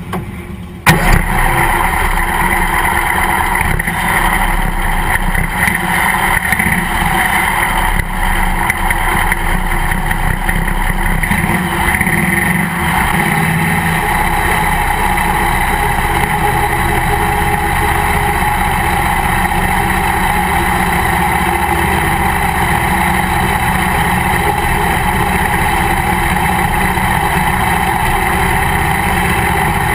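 Race car engine heard from inside the cockpit, loud and steady. It jumps in suddenly about a second in, as the engine starts, and then keeps running at an even pace.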